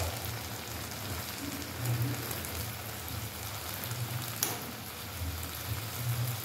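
Small peeled shrimp sizzling as they are stir-fried in a non-stick frying pan, stirred by hand, about half cooked. A single sharp click comes about four and a half seconds in.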